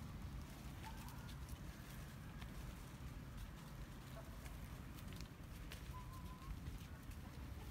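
Faint scattered crackles of dry leaf litter as long-tailed macaques move over the forest floor, over a low steady rumble, with a couple of faint short chirps.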